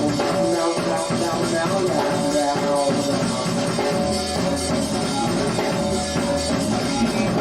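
Live rock band playing an instrumental passage with drum kit and bass, the bass line growing stronger about four seconds in.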